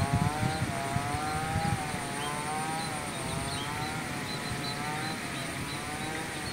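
A distant engine droning steadily, its pitch wavering slowly up and down. Wind buffets the microphone in the first couple of seconds, and a few faint bird chirps are heard.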